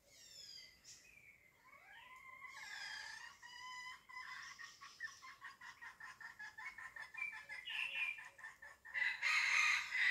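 Red junglefowl calling: a crow rising in pitch about two seconds in, then a long run of quick clucking notes, with a louder burst of calling near the end.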